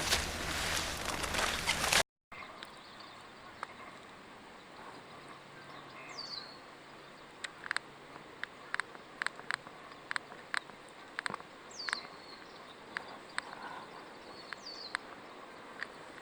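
A wood fire crackling, with scattered sharp pops, while a bird gives three short, high calls that slide downward, several seconds apart. The first two seconds are louder and noisier before a brief cut.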